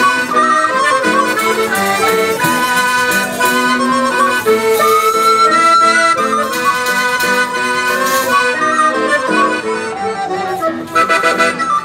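Accordion playing a tune, with acoustic guitar and a small wind instrument joining in, in a small live folk band.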